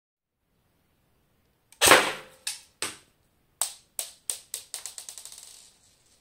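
Cyma AK-47 airsoft electric gun firing 0.25 g BBs at a bedside lamp. A loud first crack comes about two seconds in, followed by a string of sharp cracks at uneven spacing, the last ones coming quicker and quicker and fading away.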